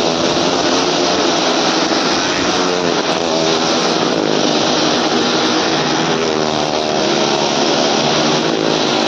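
Several motorcycle engines and a small car engine running hard as they circle the vertical wooden wall of a well-of-death drum. The engine notes waver up and down continuously and overlap.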